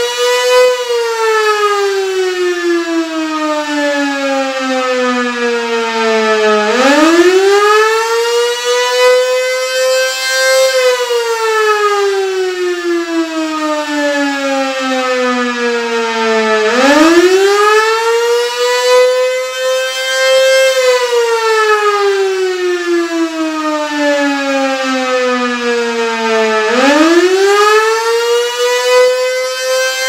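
Darley 3V8 civil defense siren sounding a wail test. Its pitch climbs quickly, then falls slowly and climbs again, roughly every ten seconds, with fresh rises about 7, 17 and 27 seconds in.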